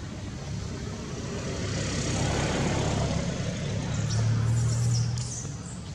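A motor vehicle going by: a low engine hum that grows louder through the middle and fades near the end.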